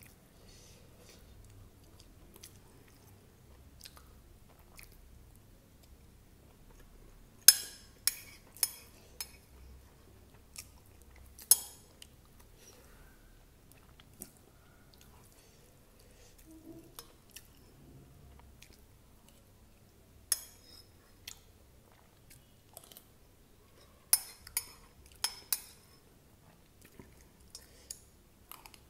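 Close-miked chewing of poha (flattened rice), with sharp clinks and scrapes of a metal spoon on a plate. The clinks come in two clusters, about a quarter of the way in and again past the two-thirds mark.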